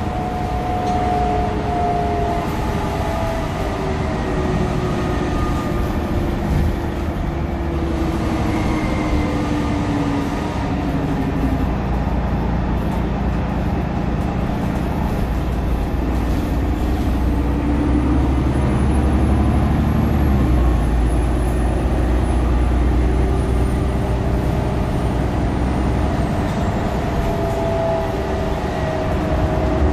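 Cabin ride noise of a 2021 Nova LFS diesel transit bus under way: the Cummins L9 engine and ZF EcoLife six-speed automatic running, with a driveline whine that slides down in pitch over the first ten seconds. From about halfway the engine grows deeper and louder, and a faint high whine rises and then fades.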